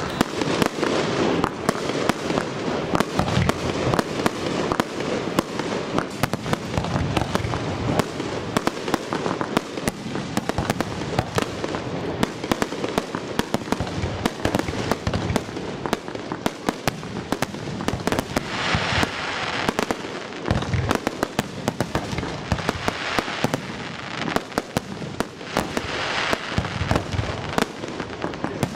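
Aerial fireworks display: shells bursting in rapid, continuous succession, a steady barrage of bangs and crackling pops. Stretches of hissing crackle rise over the bangs about two-thirds of the way through and again near the end.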